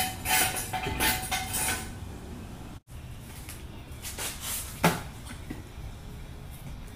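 Metal clinking and clanking at a car's muffler as tools are worked under the rear of the car. After a cut, a few hollow knocks as plastic bottles are set down on concrete.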